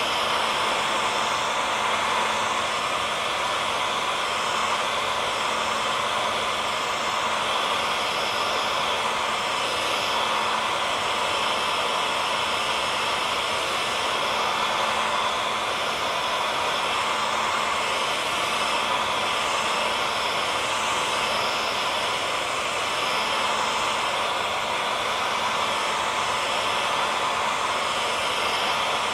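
Hair dryer blowing steadily, a constant airy rush with a faint motor hum and no change in speed.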